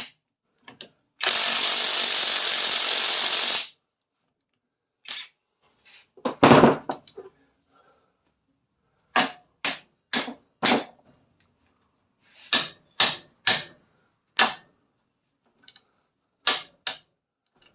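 A power tool runs in one steady burst of about two and a half seconds. It is followed by a series of sharp metal-on-metal hammer blows, singly and in quick groups of two or three, with one heavier blow about six seconds in. The blows are a seized suspension bolt being driven out of its bushing with a hammer and punch.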